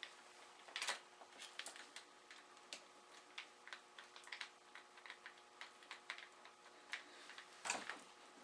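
Faint, irregular small metallic clicks and ticks, a few a second, of bolts being run in by hand to fit the intake boots on a Suzuki GS850 engine, with one louder knock near the end.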